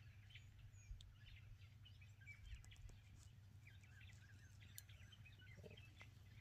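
Faint outdoor ambience with many short, high chirps scattered throughout, typical of small birds calling.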